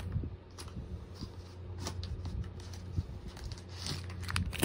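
Paper packaging rustling and crinkling as toy parts are unwrapped and handled, in irregular short crackles and light clicks.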